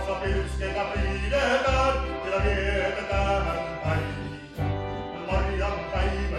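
Folk dance band playing an instrumental passage: violin and harmonica carry the melody over an electric keyboard and a plucked double bass, with the bass pulsing on a steady beat about twice a second.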